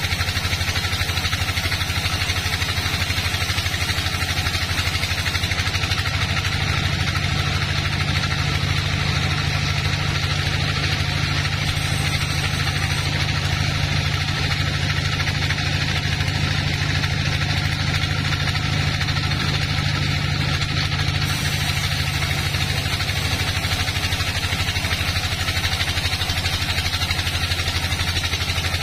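Log band sawmill running steadily while sawing a teak log, a constant low machine hum; a deeper tone in it grows stronger from about six seconds in and eases off after about twenty-three seconds.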